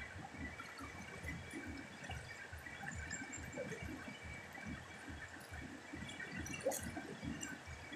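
Muddy river water rushing and lapping over rocks, a steady fluttering wash with scattered small clicks and chirps on top.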